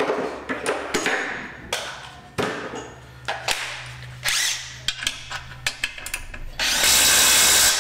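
Clicks and knocks of a cordless power tool being handled and its dead battery swapped, then near the end the tool runs steadily for about a second, the loudest sound, tightening an exhaust manifold bolt.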